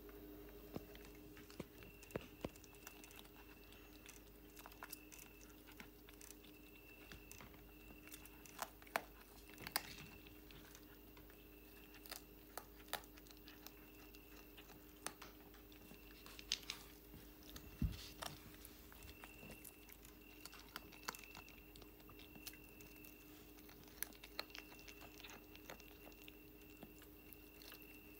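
Domestic cat chewing and crunching on a boiled snake, a scatter of irregular crisp clicks and crunches as it bites through the carcass.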